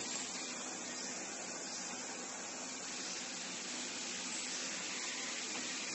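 Steady, even hiss of room background noise, with no distinct sounds standing out from it.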